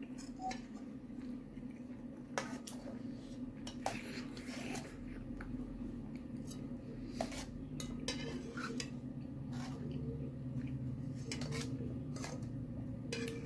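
Metal spoon and fork clinking and scraping against a ceramic bowl of momo in soup, in scattered light taps, over a steady low background hum.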